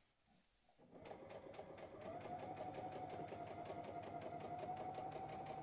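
Baby Lock sewing machine starting up about a second in, speeding up over the next second and then running steadily at speed with a rapid ticking of the needle, stitching fabric through a bias binder foot on a straight stitch.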